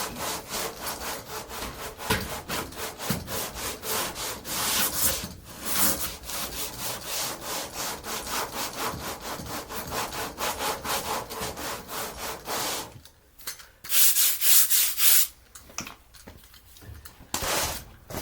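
Coarse sandpaper rubbed by hand in quick back-and-forth strokes over half-cured body filler on a car door. The filler is still soft enough to cut easily. The strokes stop about thirteen seconds in, then come back in a louder spell and a short final run.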